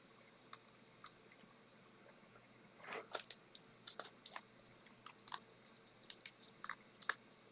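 Faint, scattered clicks and brief scrapes of small hand tools and parts being handled while a laptop display assembly is taken apart.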